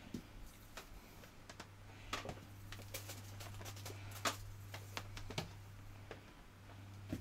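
Scattered light clicks and knocks of a power cable and small items being handled, with one sharper knock about four seconds in, over a low steady hum.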